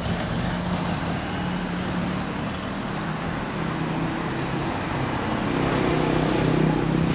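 Slow urban road traffic: car engines and a motorcycle moving at low speed. An engine note climbs in pitch and grows a little louder in the second half.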